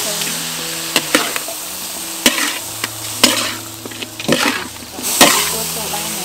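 Shredded cabbage and carrot stir-frying with minced meat in a metal wok: a steady sizzle, with a utensil scraping and knocking against the wok about six times.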